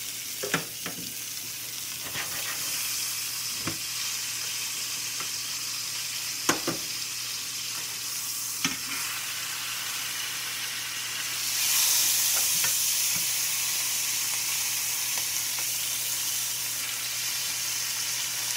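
A hanger steak sizzling in butter in a cast iron skillet, with a few sharp clicks of metal tongs against the pan in the first half. The sizzle grows louder about twelve seconds in as the steak is moved with the tongs.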